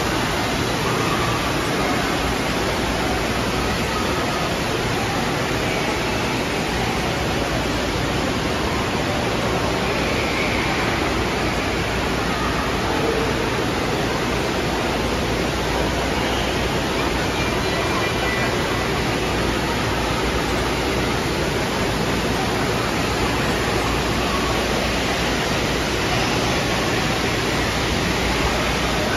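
Indoor water park ambience: a steady rush of splashing and falling water from fountains and water play features, with faint voices now and then.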